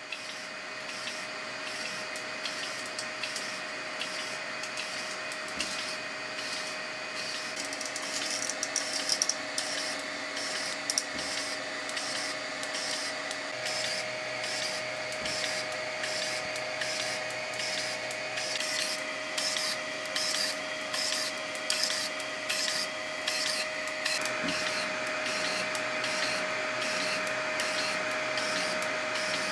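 3D printer extruder stepper motors rapidly retracting and re-feeding filament in an extreme retraction test, giving short repeated buzzing chirps a few times a second from about eight seconds in, over a steady hum.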